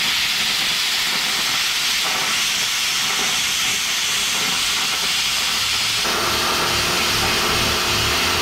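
A Prime Weld Cut 60 plasma cutter cutting 3/16-inch steel plate: the torch arc and air blast make a steady, loud hiss. About six seconds in, a low hum joins the hiss.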